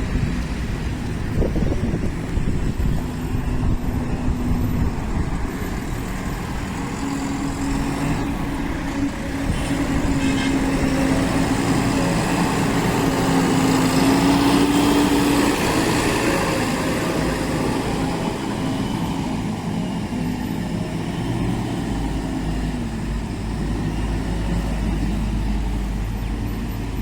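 Diesel engine of a JCB 3DX Plus backhoe loader running steadily. Its pitch and loudness rise gradually to a peak around the middle, then ease back down.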